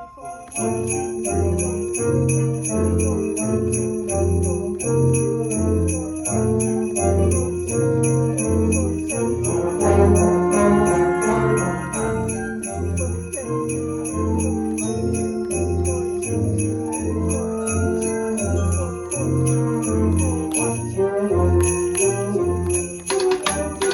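Sleigh bells shaken in a steady, continuous rhythm close by, over a full concert band of brass and woodwinds playing. The band drops out for a moment at the very start, then plays on.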